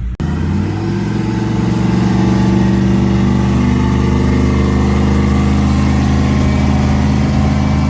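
Pickup truck engine running steadily, its pitch rising a little in the first couple of seconds and then holding.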